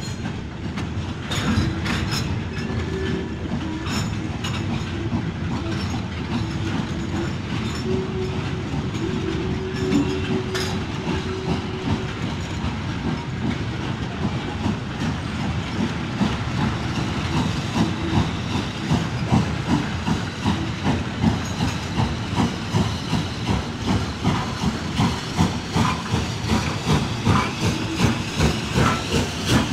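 HO-scale model container freight train rolling past, its wagon wheels clicking over the rail joints. The clicking becomes a steady, more pronounced rhythm of about one and a half clicks a second in the second half.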